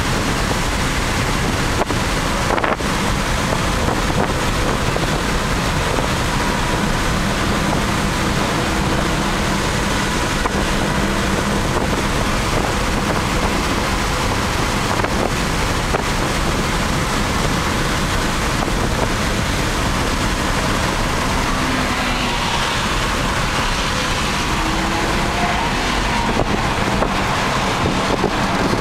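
Car driven at track speed, heard from inside the cabin: a steady rush of wind and road noise over a low engine drone, the engine note shifting a few times in the second half.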